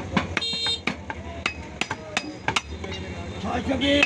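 Butcher's knife chopping beef on a wooden log chopping block: a string of sharp, irregular knocks, about two or three a second.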